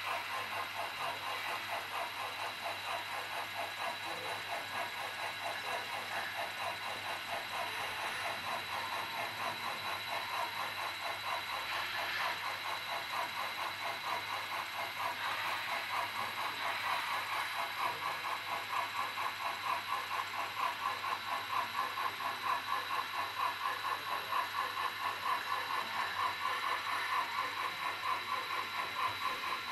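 HO-scale model geared steam locomotive running along the track, giving a steady rhythmic beat of about two a second, over a faint steady high whine. The beat grows stronger in the second half.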